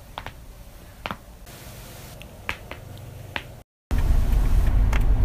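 Neck joints cracking: a series of sharp, separate pops, about six in the first three and a half seconds. After a cut, a louder low rumble carries one more pop.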